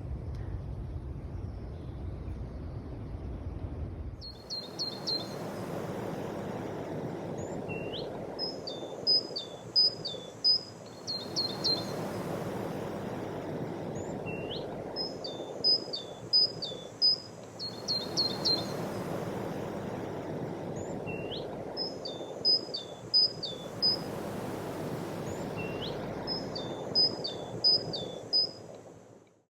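A songbird singing, from about four seconds in: a short phrase of quick high chirps and whistled notes, repeated about every seven seconds, over a steady background hiss. Low rumble, like wind on the microphone, fills the first four seconds.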